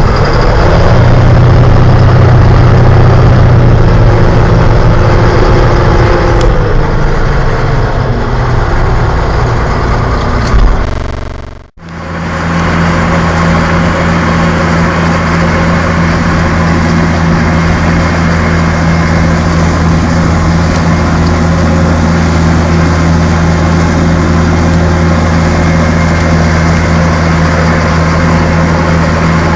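Crawler tractor's diesel engine running steadily under load, heard close by. About a third of the way in the sound cuts out briefly and resumes as a steadier, lower engine note.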